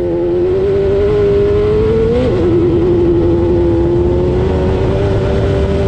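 Off-road race car engine running hard at high revs. It swells up over the first second, its pitch climbs and then drops suddenly about two seconds in, and it holds a steady drone after that.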